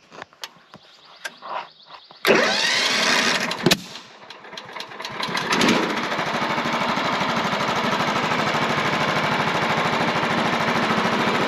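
Wood-Mizer portable sawmill's engine starting about two seconds in with a sudden loud burst, dipping briefly, then running steadily with a fast even pulse as the mill is set to cut a slab.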